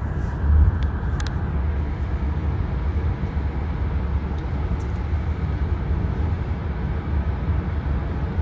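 Steady low road-and-engine rumble inside a moving car's cabin, picked up by a phone's microphone, with a couple of faint clicks about a second in.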